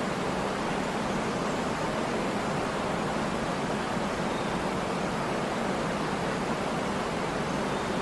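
Waterfall: water falling and splashing in a steady, unbroken rush with no distinct splashes or changes.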